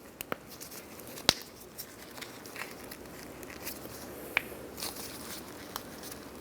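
Plastic end cover of a new exterior door handle being pressed on and clipped into place: a scattered series of sharp clicks, the loudest about a second in, with light handling rustle.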